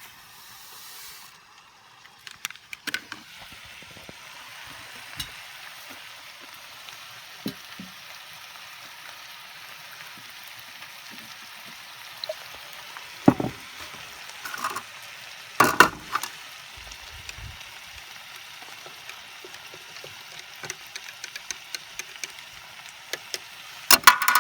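Moose steak and onions sizzling steadily in a frying pan, with scattered sharp clicks and knocks, the loudest about 13 s, 16 s and right at the end.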